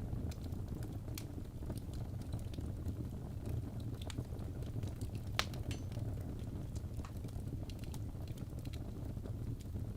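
Wood fire crackling in a fireplace: irregular small pops and snaps over a steady low rumble of burning, with one sharper pop about five seconds in.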